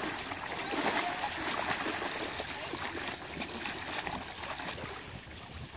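Water splashing and sloshing as legs wade through shallow lake water, slowly fading.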